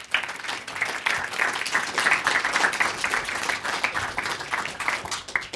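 Audience applauding: a dense run of many hands clapping that ends near the close.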